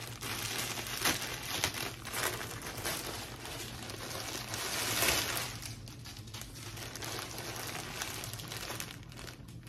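Plastic poly mailer and clear plastic clothing bags crinkling and rustling as they are handled and opened, loudest about five seconds in.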